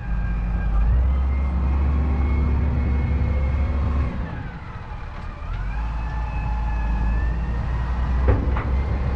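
Backhoe loader's diesel engine running with a steady low rumble and a high whine that sags about halfway through and then recovers. Two sharp knocks come near the end.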